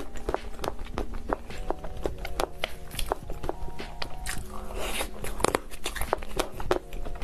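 Close-miked eating of soft chocolate mousse cake: irregular wet mouth clicks and smacks as it is bitten and chewed, about three to four a second.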